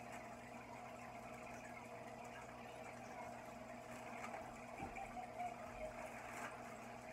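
Aquarium filter and aeration running: water bubbling and trickling steadily over a low electrical hum, with a couple of faint knocks about five seconds in.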